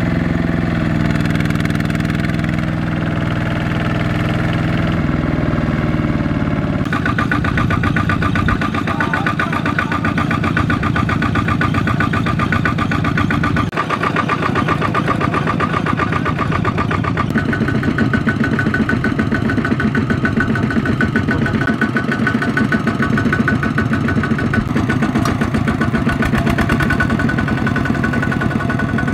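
Single-cylinder diesel engine of a two-wheel walking tractor (power tiller) hauling a loaded rice-sack trailer through mud, running steadily under load. About seven seconds in, its note changes to a faster, rhythmic chugging.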